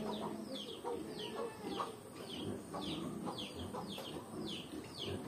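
A bird chirping over and over: short, high chirps that fall in pitch, about two a second, over a fainter low background.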